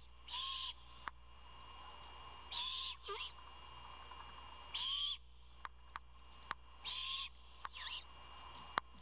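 Great horned owlet giving its raspy, hissing begging screech, four calls about two seconds apart, with fainter wavering calls after two of them. This is the young owl's call for food. Scattered sharp ticks fall between the calls.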